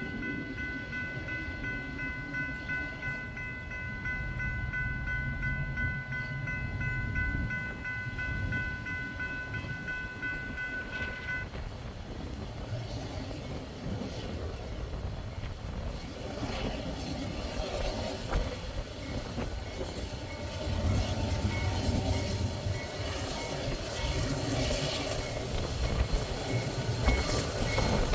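Railroad crossing warning bell ringing steadily, then cutting off about eleven seconds in, over the low rumble of an approaching Norfolk Southern freight train. The rumble of the diesel locomotives grows louder about twenty seconds in as they reach the crossing.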